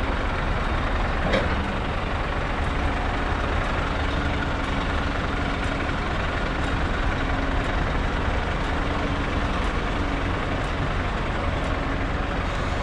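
Scania S650 tractor unit's V8 diesel engine running steadily at low speed, a continuous low rumble heard from the side of the cab.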